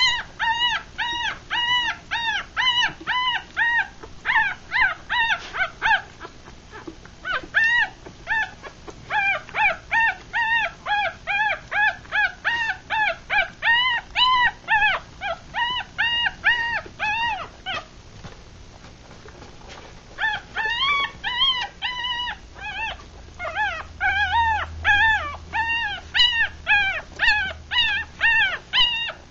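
Three-day-old Rat Terrier–Chihuahua cross puppies squeaking and whimpering while they nurse: a long run of short, high cries, each rising and falling, about two or three a second, with a pause of about two seconds past the middle.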